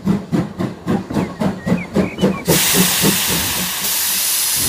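Steam-train sound effect: rhythmic chuffing about four times a second, then a sudden long hiss of steam from about halfway through.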